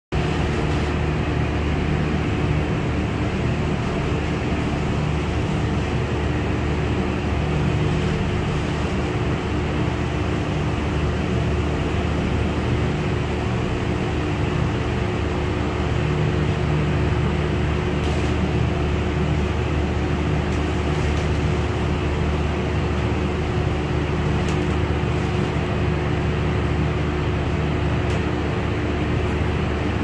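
Steady mechanical drone of a running motor, a constant low hum with a held tone above it, unchanging throughout. A few faint light ticks sound now and then over it.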